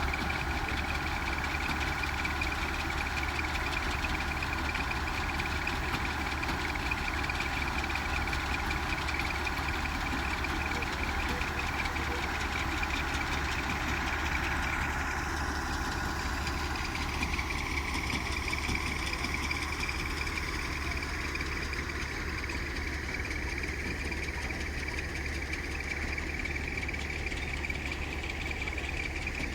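Engine of a rice-harvesting machine running steadily, with a whine over the engine note. The whine's pitch shifts about halfway through.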